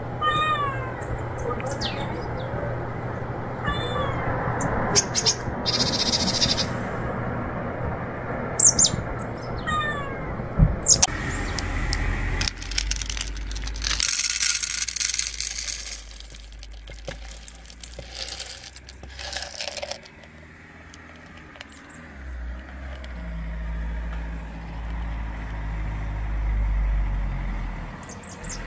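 Stray cat meowing plaintively in repeated calls that fall in pitch, with birds chirping. A low engine rumble sets in during the second half.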